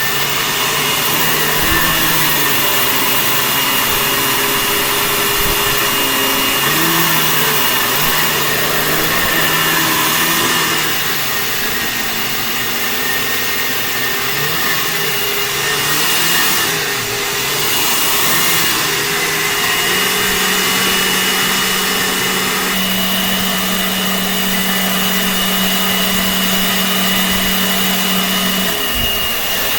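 A 2011 Dirt Devil Classic vacuum cleaner running steadily, with a constant high whine. Its lower motor hum shifts up and down in pitch for much of the time, then holds steady near the end.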